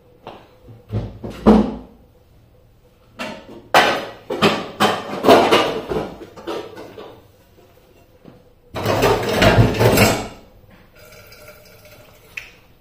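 Kitchen clatter: pots, dishes and utensils being handled and set down, in three bouts of knocks and rattles, the longest in the middle.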